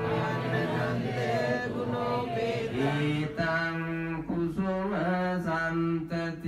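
A Buddhist monk chanting in a slow, melodic male voice, holding long notes and gliding between pitches.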